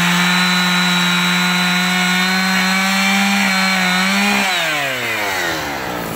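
Two-stroke chainsaw running at full throttle with its chain cutting into a tree stump, holding a steady high pitch; about four and a half seconds in the throttle is released and the engine note falls away toward idle.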